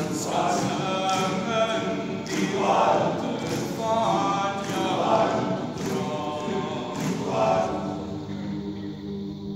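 Male a cappella choir singing, closing on a held chord that fades out near the end.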